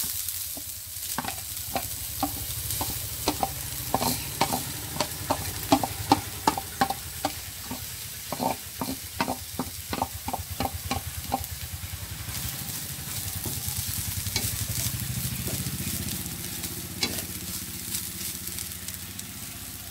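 Grated coconut with curry leaves and shallot sizzling in hot coconut oil in a pan, being roasted for a curry masala. For the first eleven seconds or so a spoon clicks and scrapes against metal, about three times a second, as the coconut is pushed off a steel plate and stirred in. After that comes a steadier sizzle with stirring.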